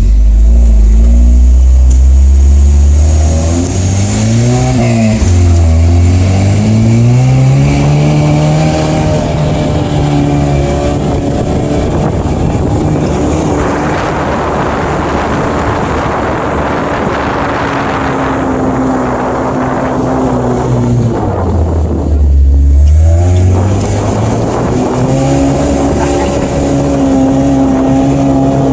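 Toyota's engine being driven hard, its pitch climbing and falling as it accelerates and eases off, with a dip low a little after twenty seconds before it climbs again. A heavy rush of wind over the microphone covers much of the middle stretch.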